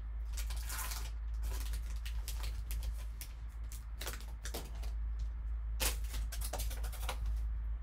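Foil pack wrapper crinkling and trading cards being slid out and handled, a run of crackles and light clicks over a steady low hum.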